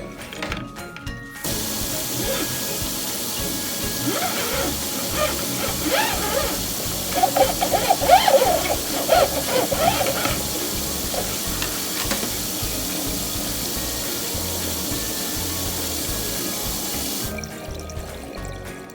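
Water running from a tap into a kitchen sink in a steady hiss. It starts about a second and a half in and cuts off shortly before the end.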